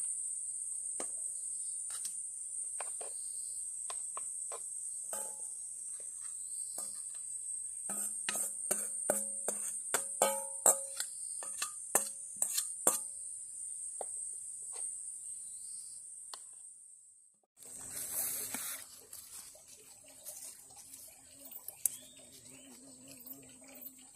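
Steady high-pitched insect drone with scattered clicks and knocks as salad is tipped out of a stainless steel bowl onto a cutting board. The clatter is thickest in the middle, with some ringing from the metal bowl. The drone then fades out and a quieter outdoor background follows.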